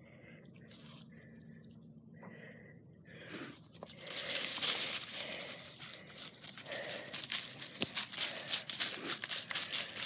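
Quiet at first, then from about three and a half seconds in a loud, continuous crunching and rustling with many quick crackles: hurried footsteps outdoors with the phone jostling in hand.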